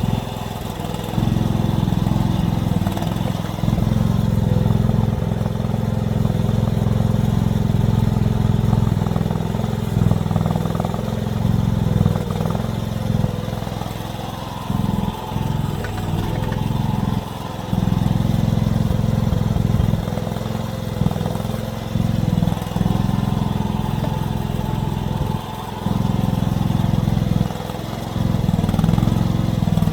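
Mini excavator engine running steadily, with brief dips in level several times.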